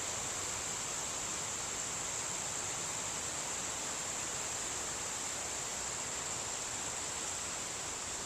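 Steady outdoor ambience: insects keep up a constant high-pitched drone over a broad hiss of wind and rustling leaves.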